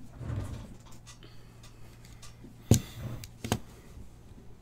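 Two sharp knocks about three-quarters of a second apart, the first the louder, with a brief soft rustle near the start, over a steady low hum.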